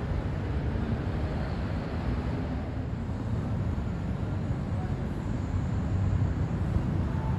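Steady low rumble of background noise, unchanging, with no distinct events.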